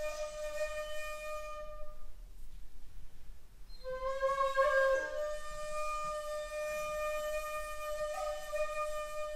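Solo shakuhachi, the Japanese end-blown bamboo flute, playing slow honkyoku: long breathy held notes. A pause of about two seconds comes after the opening note, then a note slides up into another long tone, which steps briefly higher near the end.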